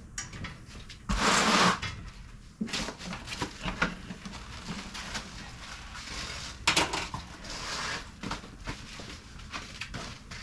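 Packing material being pulled and handled while unboxing a large flat-packed part: rustling and crinkling with scattered knocks and clatter, and a loud rustle about a second in.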